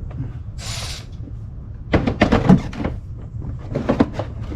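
A ratchet and socket clicking and clanking against metal in two bursts, about two and four seconds in, after a brief hiss about a second in.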